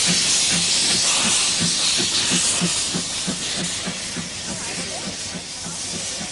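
Narrow-gauge steam tank locomotive pulling away with its cylinder drain cocks open: a loud steam hiss that slowly fades, over steady exhaust chuffs about three a second.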